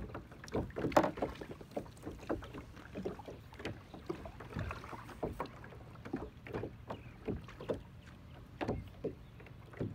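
Lake water slapping against the hull of a plastic sit-on-top kayak under way, in irregular knocks and thuds, the loudest about a second in.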